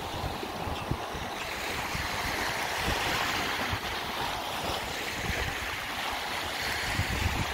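Small sea waves washing up on a sandy beach, swelling about three seconds in and again near the end, with wind buffeting the microphone.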